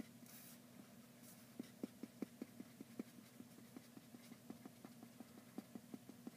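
Faint, quick ticks of a marker tip flicking short fur strokes onto paper, irregular, about two or three a second, over a faint steady hum.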